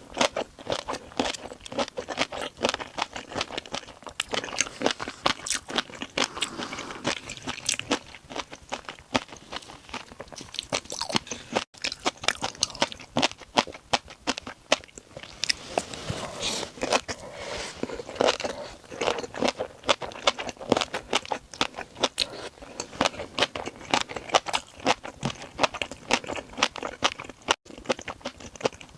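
Rapid, steady crunching and chewing of shrimp mixed with crunchy rice snacks and peanuts.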